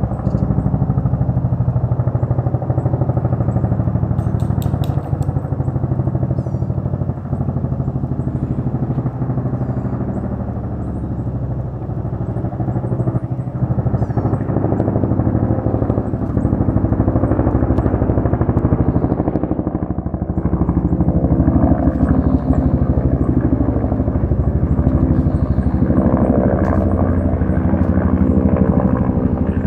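Bell UH-1 Huey helicopter: the rotor blades beat in a steady, rapid rhythm over the turbine's running sound. It eases off a little around the middle and swells again in the second half.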